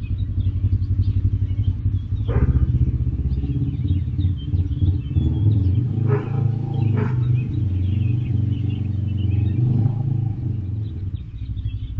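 Low, steady drone of a motor running, with faint bird chirps above it and a few brief louder noises about two, six and seven seconds in.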